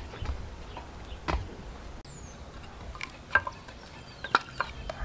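Rural outdoor ambience: a few scattered light clicks and knocks over a low rumble, with faint high bird chirps about two seconds in and again near the end.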